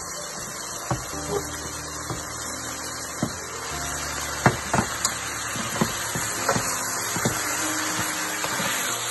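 Chicken pieces and vegetables stir-fried in a hot frying pan with a wooden spatula: sizzling that grows louder about four seconds in, with irregular knocks of the spatula against the pan.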